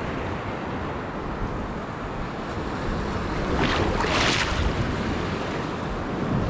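Wind rushing on the microphone and shallow surf water moving around a wading angler, with a louder splash of water about three and a half seconds in, lasting about a second.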